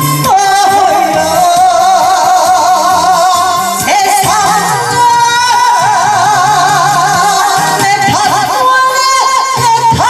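A woman singing a Korean trot song live into a microphone over a backing track played through a PA speaker, holding long notes with a wide vibrato.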